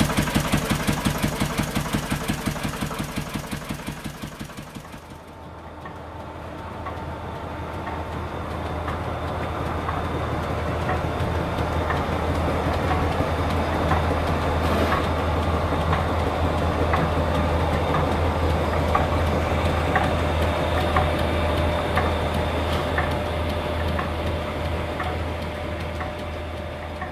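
An old single-cylinder stationary engine running in even beats that fade away over the first five seconds. Then the steady low hum of an overhead line shaft and flat belts turning, with faint regular ticks.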